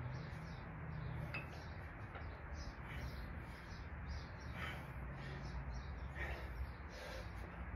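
Birds chirping in the background over a low steady hum.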